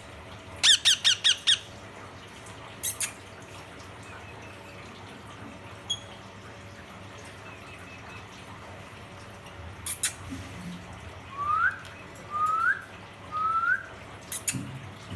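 Ringneck parrot calling: a quick run of five loud, harsh squawks about a second in, then, after a pause, three short rising whistled notes, with a few sharp clicks in between.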